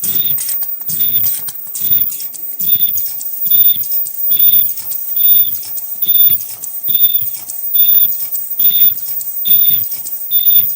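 High-speed 2D bird-beak mask-making machine running in its production cycle: a short high-pitched tone and a clatter repeat evenly a little more than once a second over a steady hiss.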